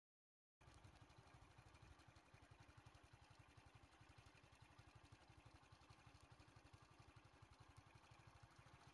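Faint engine idling with a steady, rapid low pulse, cutting in about half a second in after dead silence.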